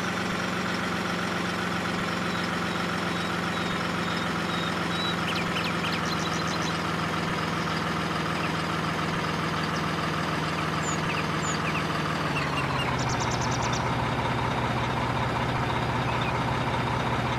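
An engine running steadily at a low, even pitch, which steps down a little about twelve seconds in.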